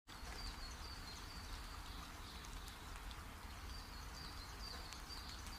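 Faint outdoor ambience heard from inside a car: a steady low rumble, scattered soft ticks, and a small bird's short high chirps, repeated about twice a second in two runs, near the start and again from about the middle.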